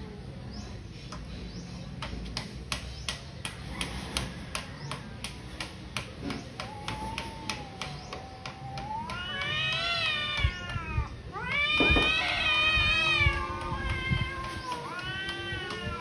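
Two domestic cats in a fighting standoff, one yowling: long drawn-out caterwauls that waver and rise and fall in pitch, starting about halfway through and loudest in the middle. Before that, a quick run of sharp clicks.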